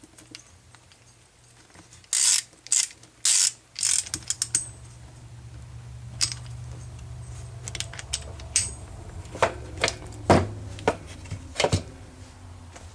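Clicks and clinks of metal hardware as a crimped cable lug is bolted onto a finned aluminium heat sink, the loudest cluster about two to four seconds in. A low steady hum comes in about four seconds in and runs under further scattered clicks.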